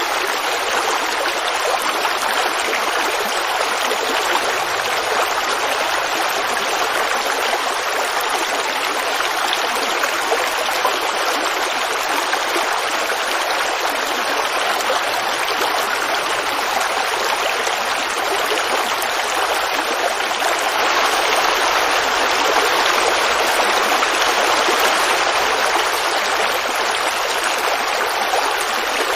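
Forest creek babbling over rocks, a steady rush of running water that grows slightly louder about two-thirds of the way through.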